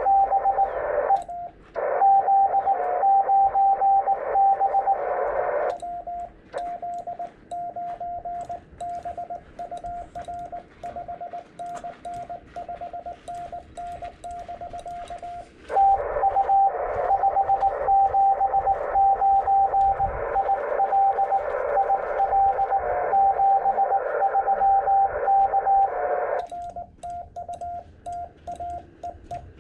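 Morse code on a ham radio transceiver: another station's keyed tone over receiver hiss, alternating with the operator's own slightly lower-pitched sidetone while he sends, when the hiss drops out and the paddle key clicks. The other station is heard at first, the operator sends from about six seconds in, the other station answers from about sixteen seconds, and the operator sends again near the end.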